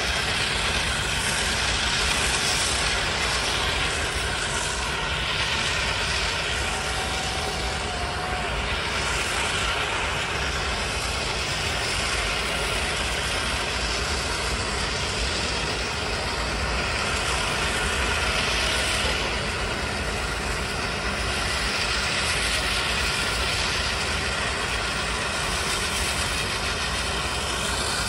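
Steady rushing noise from a Bucyrus-Erie 50-B steam shovel's firebox and stack under a hard draft, the stack throwing sparks, rising and falling gently with no clear exhaust beat.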